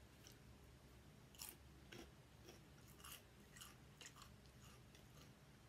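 Potato chips being bitten and chewed: a run of short, crisp crunches, starting about a second and a half in.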